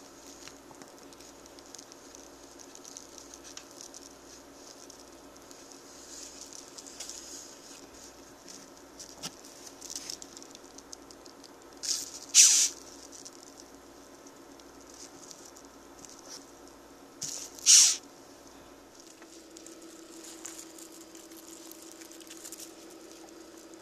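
Ten-lined June beetle hissing twice when touched, a defensive hiss made by rubbing its abdomen against its wing covers. Each hiss is a short breathy 'ffft', a small puff then a louder one, about five seconds apart. Between them, faint scratching of the beetle's feet on a paper plate.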